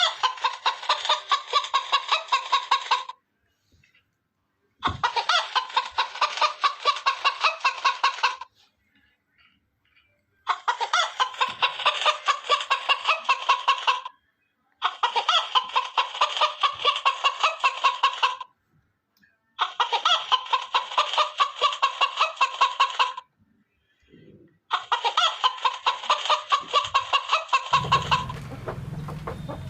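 A chicken clucking in fast, even pulses, in six bursts of about three and a half seconds each with short silences between. A steady low background noise comes in near the end.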